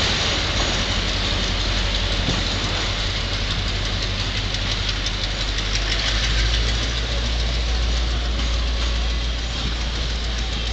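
A diesel-electric locomotive (BB200, EMD G8U6) runs at the head of a departing passenger train. A steady engine rumble blends with the rolling noise of the carriages as the train moves off along the line.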